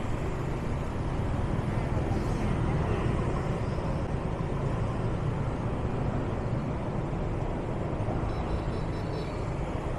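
Steady low rumble of road traffic heard while moving along a city street, with no single vehicle standing out.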